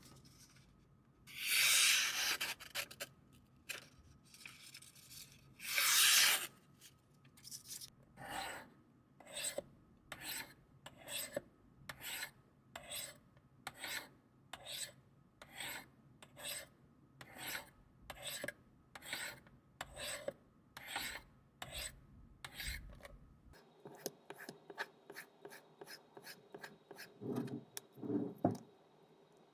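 A knife blade drawn repeatedly across a sharpening or honing surface, giving scraping strokes. Two long strokes come first, then a steady run of shorter strokes at a bit more than one a second, and near the end quicker, lighter strokes.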